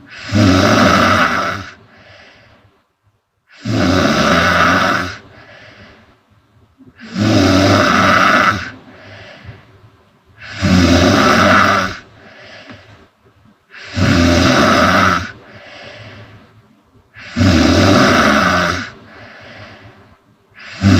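A woman snoring loudly in deep sleep, with six long snores about three and a half seconds apart. Each is followed by a shorter, softer breath, and a seventh snore begins right at the end.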